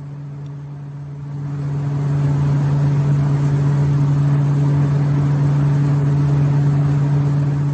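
Heater's blower fan motor running with a steady low hum and rushing air, getting louder about a second and a half in. It runs between failed burner start attempts, because the pressure switch, its tube removed, never senses airflow.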